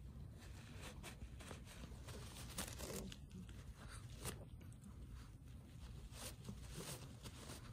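Shih Tzu tearing and chewing a piece of paper: irregular crinkling and ripping, with a few sharper, louder rips spread through.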